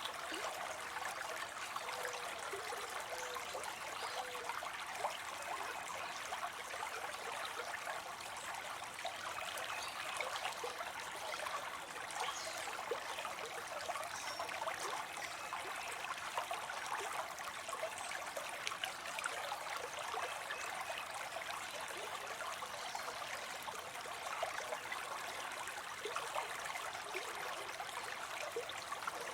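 Water spilling steadily into a pond: a continuous splashing and trickling with many small splashes.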